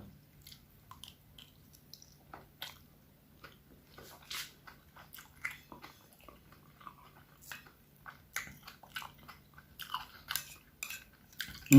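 A person chewing food close to the microphone: soft, irregular mouth clicks and light crunching bites.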